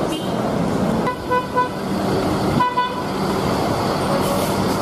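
Street traffic of queued buses with engines running, and several short vehicle horn toots: about a second in, near three seconds and near the end.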